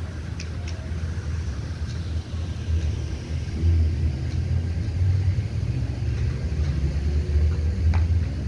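Outdoor town-square ambience: a low, uneven rumble with faint distant voices and a few light clicks.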